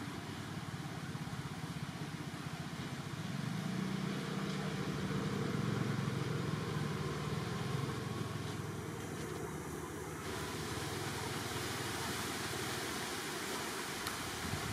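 Steady background hiss with a low droning hum that swells about three seconds in, is loudest around the middle and fades away after about ten seconds.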